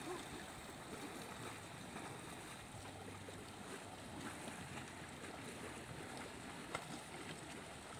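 Steady wash of wind and water noise outdoors, with a faint sharp click near the end.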